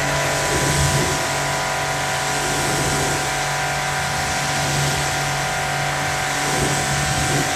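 Pressure washer running steadily, its pump humming under the hiss of the water jet spraying onto a car's door panel and sill to rinse it.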